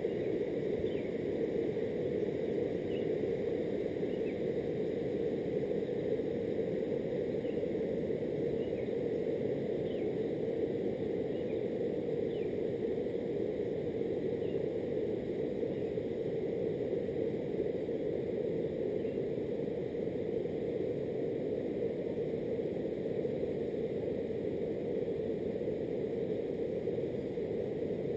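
Floodwater of a river over its banks rushing in a steady, even roar, with faint short high chirps about once a second through the first half.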